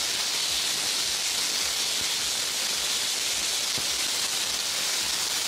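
Thin strips of beef sizzling steadily in very hot olive oil in a wok on full heat.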